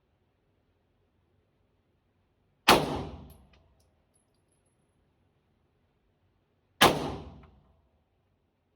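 Two handgun shots about four seconds apart, each a sharp crack with a short echoing tail.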